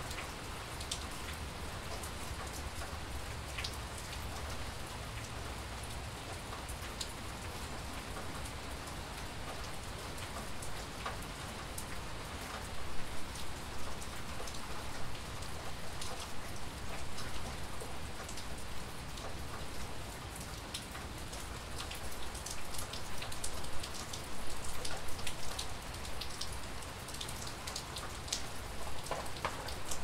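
Steady rain falling, with many distinct drop taps over the even hiss, the taps coming more often from about halfway on.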